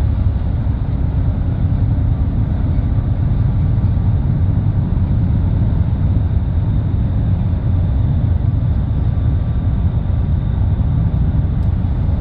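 Steady low rumble of a ship's diesel engines running, with a faint steady whine on top.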